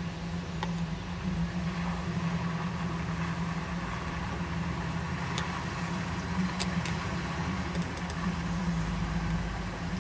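Jeep engine running steadily at low trail speed, with a few faint ticks about halfway through.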